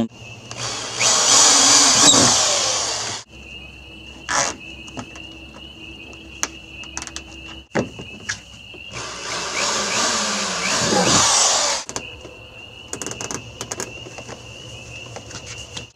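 Nylon zip ties being pulled tight around a foam pool noodle: two ratcheting zips, each two to three seconds long, with a few single clicks between them. Crickets chirp steadily underneath.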